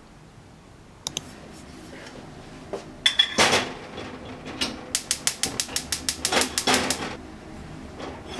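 Typing on a keyboard: scattered key clicks start about a second in, followed by a quick cluster, then a fast, even run of keystrokes at about eight a second.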